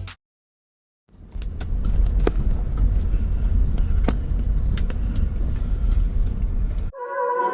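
Car driving on the road: a steady low rumble of engine and tyres with a few faint clicks, starting after about a second of silence.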